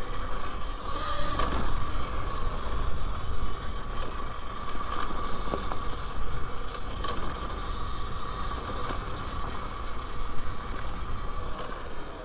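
Talaria Sting R MX4 electric dirt bike riding a rough dirt trail: the motor gives a steady high whine that fades near the end, over a low rumble with scattered knocks and rattles from the ground.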